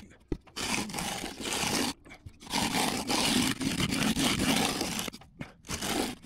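Steel hand concrete edger dragged along the top of a freshly poured concrete foundation wall, scraping through the wet concrete in three strokes, the middle one the longest, with short pauses between.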